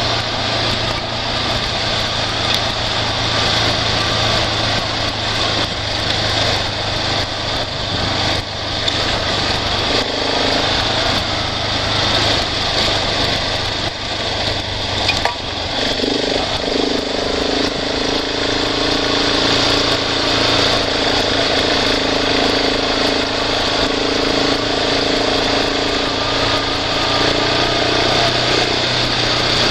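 A vehicle's engine running steadily while it drives along a rough dirt road, with road noise and small rattles throughout. About halfway through, a higher, steadier engine note joins in and holds.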